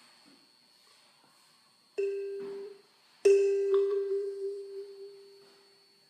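Kalimba tine plucked twice on the same note: the first is cut short after under a second, the second rings out for about two and a half seconds, its level wavering as it fades, an attempt at the kalimba's wah-wah effect.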